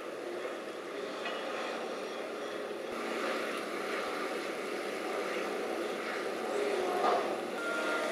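Heavy construction plant on a piling site, a tracked piling rig among it, running with a steady engine drone that grows a little louder about three seconds in and swells briefly near seven seconds.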